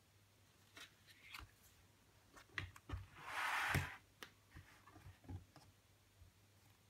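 Handling of a CD digipak and its photobook: paper and cardboard rubbing and tapping, a louder swish about three and a half seconds in as the cover slides over, and a few soft thumps as the case is folded shut.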